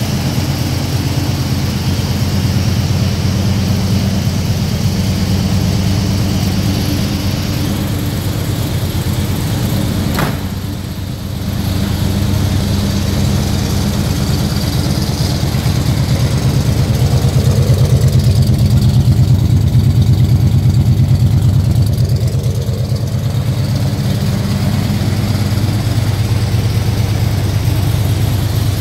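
1966 Ford Mustang engine idling steadily, with one sharp click about ten seconds in and the idle a little louder for a few seconds past the middle.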